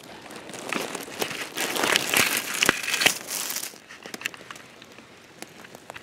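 Dry pine needles and twigs rustling and crackling as a hand rummages through forest-floor litter close to the microphone. It is loudest in the middle, with a few sharp snaps, then dies down to scattered crackles.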